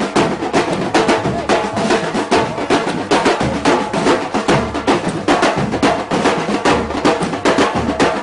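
Afro-Brazilian batuque percussion ensemble playing drums in a fast, dense, steady rhythm of strikes.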